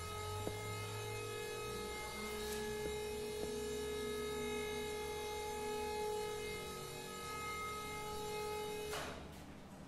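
Electric hydraulic pump motor of a two-post car hoist running with a steady hum as the lift raises the car, stopping near the end.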